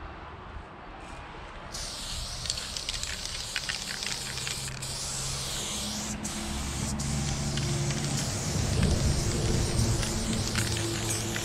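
Aerosol spray can with a Montana Level 6 fat cap spraying paint in long steady hisses, starting about two seconds in and broken by a few brief stops. A low hum sits underneath from about halfway through.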